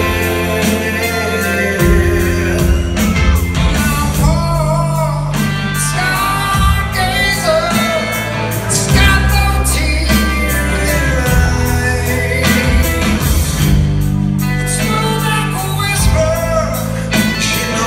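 Live rock band playing, with electric guitars, bass and drums under a male lead vocal, recorded from the audience in a theatre.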